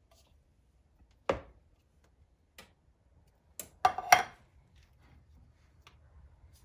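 A wooden-handled spatula and an opened metal soup can knocking together while thick cream of mushroom soup is scraped out over a plastic bowl. There is a single sharp knock about a second in, a faint tick, then a quick run of three louder knocks past the middle.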